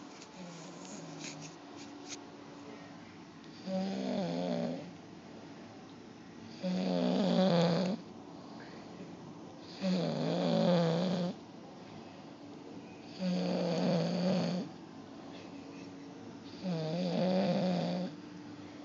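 Snoring in sleep: five snores, one about every three seconds, each lasting a little over a second, with quiet breathing between them.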